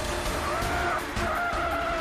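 Cars driven hard in a chase, engines running with squealing tyres, under dramatic background music.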